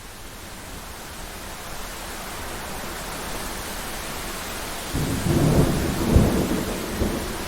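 Thunderstorm: a steady hiss of rain and wind slowly swelling, then about five seconds in a low rumble of thunder with a sharp crack about a second later.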